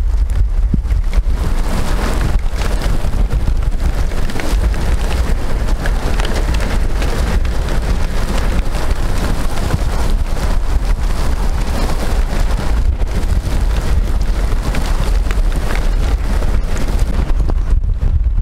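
Thunderstorm wind gusting hard over the microphone with heavy rain falling: a loud, steady rush with a deep rumble from the gusts.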